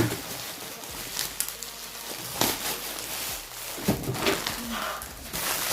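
Packaging rustling and crinkling as it is handled, with a few sharp knocks.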